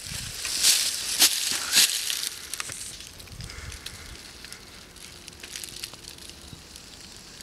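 Dry twigs and branches rustling and crackling as they are pushed and handled, louder for the first two seconds with three sharp crackling bursts, then quieter scattered rustles and ticks.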